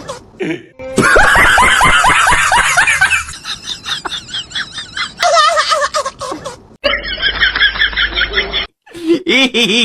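Dogs making laugh-like vocal sounds across several short clips cut together, including a rapid run of quick repeated rising calls near the start.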